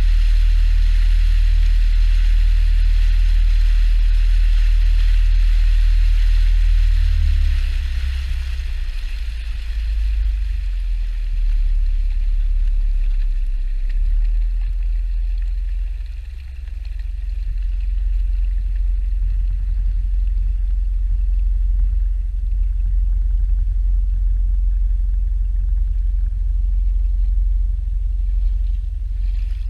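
Small expedition boat under way: a steady low rumble with water hissing along the hull, the hiss dying down about ten seconds in.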